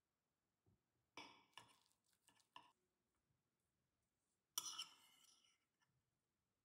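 Metal knife and fork scraping and tapping against a plate: a few short scrapes and clicks about a second in, then a sharper clink with a brief ring past the middle.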